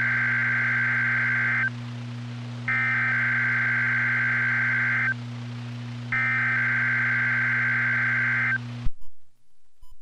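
NOAA Weather Radio SAME header for a Required Weekly Test: three identical bursts of warbling digital data tone, each about two and a half seconds with a second's gap between, over a steady low hum. This is the coded signal that sets weather radios off. The broadcast audio cuts off about nine seconds in.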